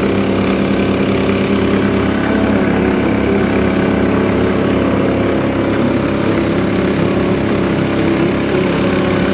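Motorboat engine running steadily at an even pitch, under a hiss of wind and water.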